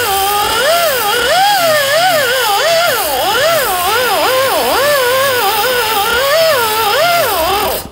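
Background music: a wavering, sliding lead melody over a steady accompaniment, cutting off abruptly near the end.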